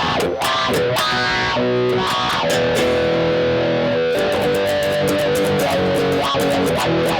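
Electric guitar played through a pedal board, strumming chords; a little under two seconds in one chord is left to ring for about two seconds before the strumming picks up again.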